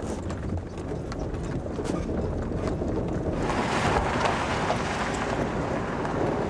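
Road noise inside a moving bus: a steady low rumble with a few light rattles, swelling into a louder rushing hiss about three seconds in.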